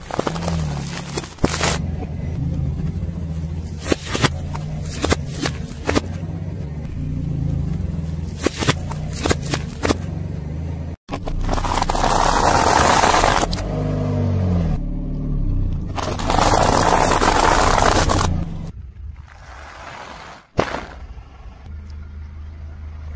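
Car engine running at low speed while a tyre rolls over and crushes objects, with sharp crackling snaps and scraping. There are two longer, louder stretches of scraping noise in the middle part.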